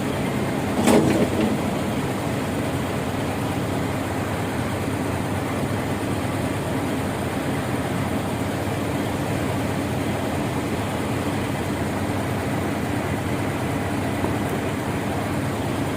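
Diesel engines of a concrete pump and transit mixer truck running steadily during a concrete pour, with one brief clank about a second in.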